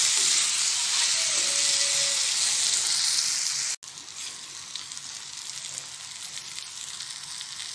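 Eggplant pieces sizzling in oil and masala in a kadhai while a spoon turns them, a steady frying hiss. A little under four seconds in, the sizzle drops suddenly to a quieter level.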